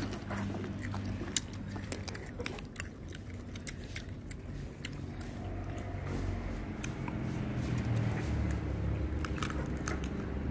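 Close-up chewing and biting of crisp raw fruit, with many short, sharp crunches.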